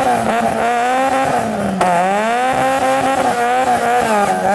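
Small hatchback rally car's engine revving hard and unevenly while the stranded car is pushed free of the grass verge, its pitch wavering up and down, dipping deeply about two seconds in and climbing back.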